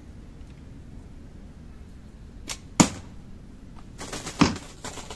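A bowstring on a 3D-printed bow released with a light snap, followed a fraction of a second later by the arrow striking a cardboard box target with a sharp, loud thud. Near the end, a second sharp impact on the box with a short rattle.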